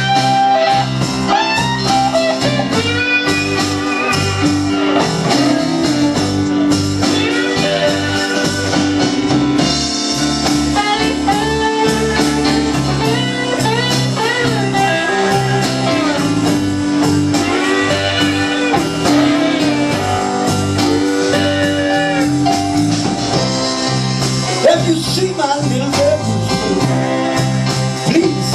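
Live blues band playing an instrumental break: lead guitar with bent notes over bass, keyboards and drums.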